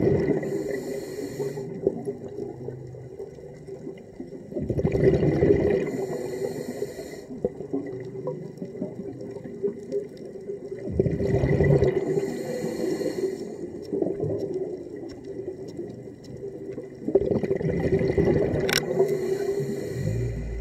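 Underwater breathing of a diver through a regulator: four breath cycles about six seconds apart, each a surge of bubbling followed by a hiss.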